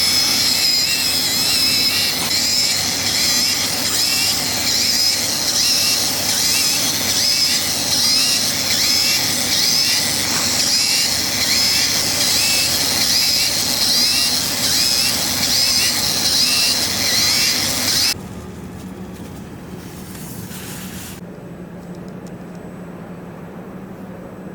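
CNC oscillating-knife cutting machine running, a loud steady hissing buzz with a faint repeating pattern in it. It cuts off suddenly about three-quarters of the way through, leaving a quieter steady hum.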